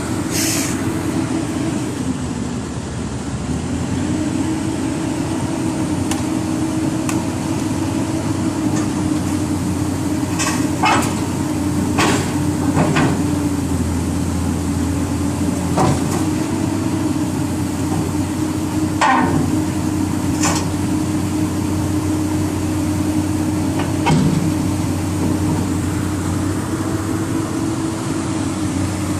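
Heavy diesel machinery engine running steadily, its pitch dipping briefly near the start, with about nine sharp metallic clanks and knocks scattered through, the kind made by steel tracks and parts striking a steel ramp or deck during loading.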